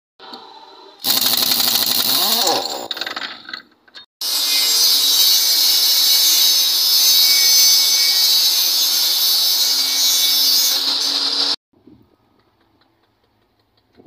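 Air impact wrench working the wheel nuts of a truck wheel for a few seconds. Then a table saw running steadily for about seven seconds, cutting wood, which cuts off abruptly near the end.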